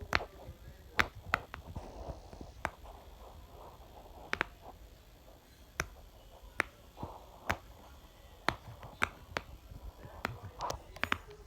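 Silicone pop it fidget toy having its bubbles pressed in one by one, each giving a short, sharp pop. There are about fifteen pops at uneven spacing, one or two a second.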